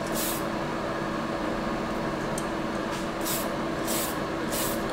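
Short hisses of a Tamiya aerosol spray paint can, laying light coats on a model car body: one at the very start, then three quick ones near the end. Under them runs the steady hum of a spray booth's extraction fan.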